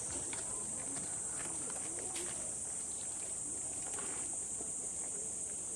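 A steady high-pitched insect chorus drones on without a break, over a faint murmur of distant voices.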